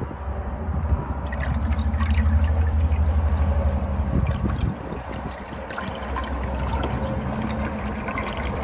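American Standard Luxor toilet flushing: water rushing and swirling down the bowl into a deep siphon. The rush builds from about half a second in, is loudest a couple of seconds later, and eases off after about five seconds, then drains on more weakly.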